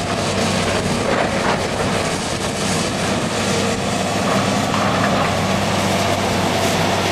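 An engine running steadily: a continuous low drone with even mechanical noise over it.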